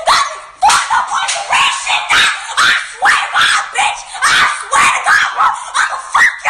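A dog barking in a rapid run of short barks, about two a second.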